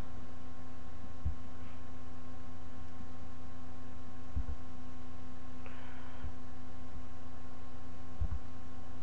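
Steady electrical mains hum from the recording chain, with a few soft low thumps scattered through it.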